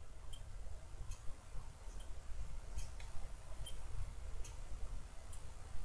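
Computer keyboard typing: faint, irregular key clicks, a few a second, over a low background hum.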